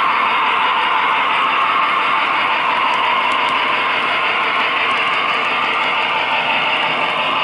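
Model train running along the track, heard from a camera riding on the train: a steady rolling noise that does not let up.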